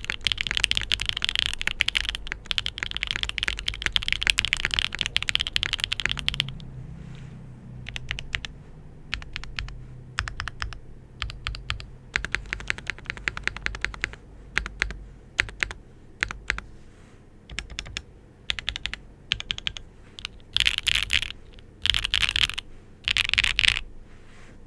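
Mechanical keyboard with stock, factory-lubed Gateron Smoothie full-POM long-pole linear switches, on an aluminium flex-cut plate with GMK keycaps, being typed on. Fast continuous typing for about the first six seconds, then slower separate keystrokes, then three short quick flurries near the end.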